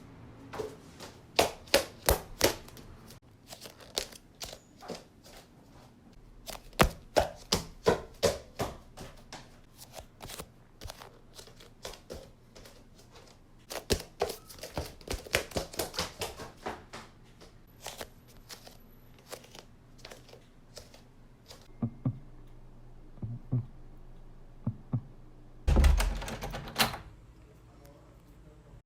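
A long series of sharp knocks and taps, often in quick runs of several a second, with a louder burst of heavier thumps near the end.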